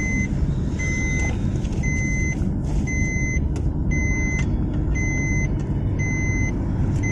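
Car's seat-belt reminder chime: a short high beep about once a second, repeating steadily over the engine and road rumble in the cabin, the warning for an unfastened front passenger belt.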